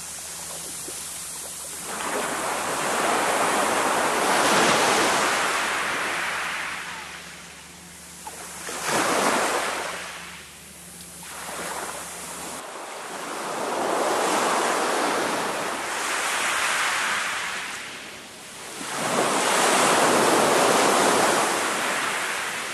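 Small waves breaking and washing up a shingle beach, the surf rising and falling back in surges every few seconds.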